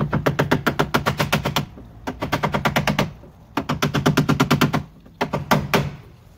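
Rapid taps, about ten a second, on a wooden block held against a curtain track, knocking the track flush so it moulds into the van's door frame. The taps come in four runs with short pauses between them, the last one shorter.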